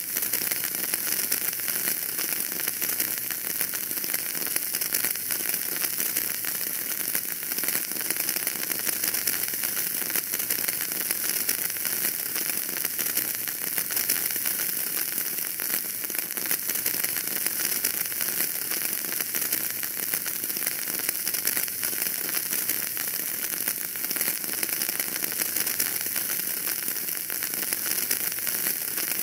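Wood fire burning in a fireplace, crackling steadily: a dense hiss with many small pops and ticks.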